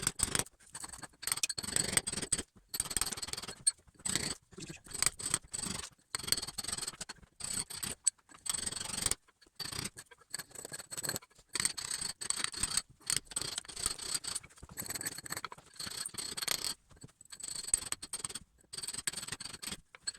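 Scutch chisel being struck again and again, chopping brick and plaster out of a wall to make the recess for an electrical back box: irregular runs of sharp, scraping strikes with short pauses between them.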